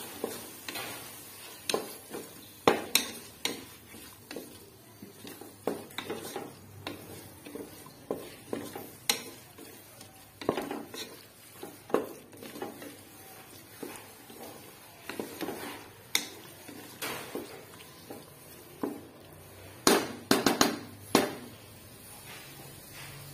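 A spatula stirring and scraping diced tomatoes and masala in an aluminium pressure cooker, knocking irregularly against the metal pot. A quick run of knocks comes near the end.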